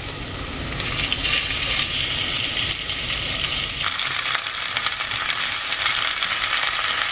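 Hot sesame oil sizzling in an enamelled cast-iron Dutch oven as beef short ribs are browned. It is a steady frying hiss that grows louder about a second in.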